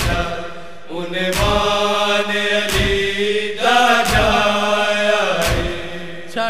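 Male voice chanting a Punjabi noha (Shia lament) in long held notes, over a deep beat that falls about every second and a half.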